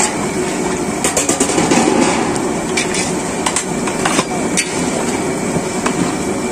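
Long metal spatula scraping and knocking against a large iron karahi while a big batch of chicken curry, thinned with hot water, is stirred: irregular clanks over a steady hiss.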